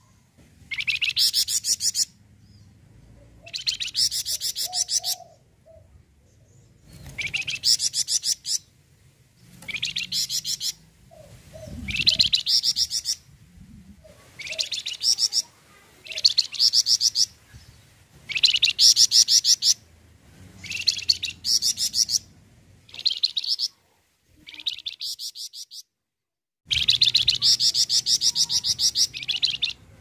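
Caged flamboyan songbird singing in full voice: about a dozen quick, high-pitched rattling trills, each around a second long, coming roughly every two seconds, with a short pause shortly before the end.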